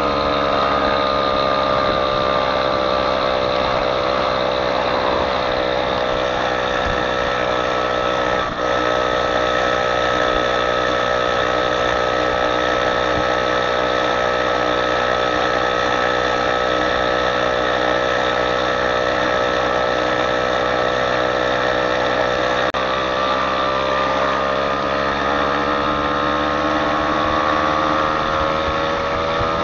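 A vehicle's engine running steadily under way, its pitch easing down a little through the middle and climbing again near the end.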